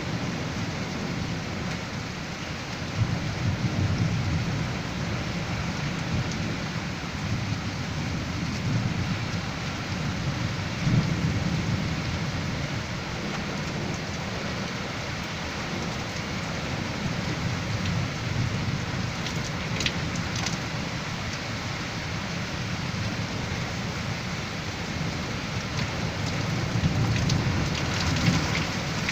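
Heavy wind-driven rain pouring down steadily in a severe storm, with low rumbling swells several times; the strongest come about a third of the way in and near the end.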